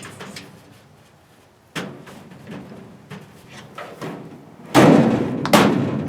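Stainless-steel cabinet parts being handled: light clicks and rattles, then from about five seconds in a few loud sudden metal bangs and clunks, like a drawer or panel being knocked into place.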